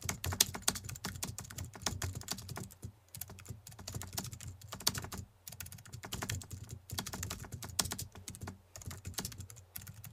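Computer keyboard typing sound effect: fast runs of key clicks broken by short pauses.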